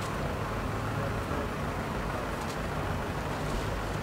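Town street traffic: a steady low rumble of cars and a van passing and idling at a junction, with no single event standing out.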